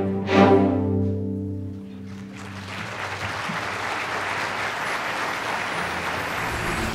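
A string orchestra's final chord is held and fades out about two seconds in; the audience then breaks into steady applause.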